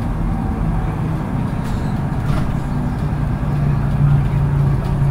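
Autosan Sancity 12 LF city bus under way, heard from inside the passenger cabin: a steady low engine and drivetrain hum with road noise, swelling slightly about four seconds in.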